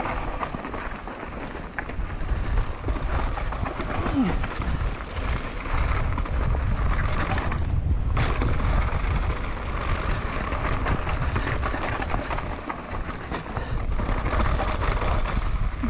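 Mountain bike riding fast down a dirt forest trail: tyres rolling over loose dirt and the bike rattling, under steady wind rumble on the microphone, with a brief lull about halfway through.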